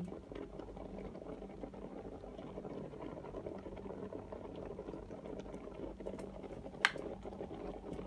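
Black & Decker electric kettle boiling, a steady bubbling; nearly seven seconds in its switch clicks off once, a sharp click that marks the end of the boil.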